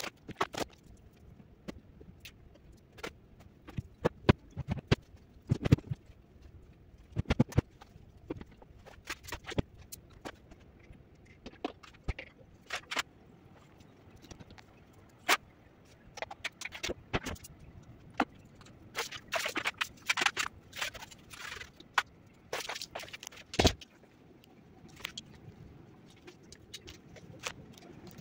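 Scattered knocks, clicks and rustles of things being handled and of someone moving about the rooms, irregular and spread throughout, with a sharper knock near the end.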